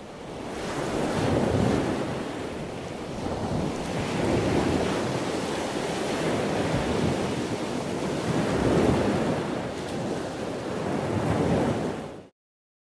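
Ocean waves washing in, swelling and fading about every three to four seconds, then cutting off abruptly near the end.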